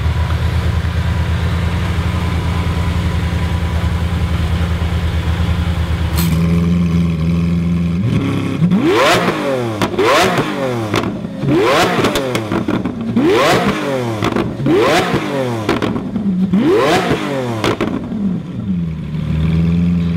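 Lamborghini Aventador Roadster's 6.5-litre V12 idling, then revved hard about six times in quick succession, each rev climbing sharply and dropping straight back, before settling to idle again near the end.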